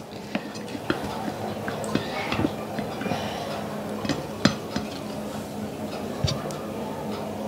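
Scattered clinks and light scrapes of a serving utensil against plates and a frying pan as food is dished out, the sharpest clink a little past halfway, over a faint steady hum.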